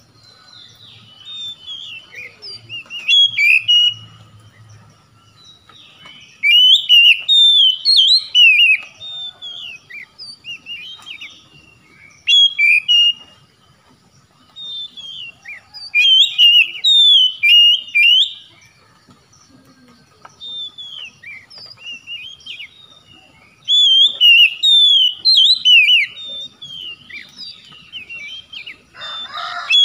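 Oriental magpie-robin (kacer) singing in energetic bursts of quick, varied whistled notes. Each burst lasts one to three seconds and repeats every few seconds, with quieter pauses between.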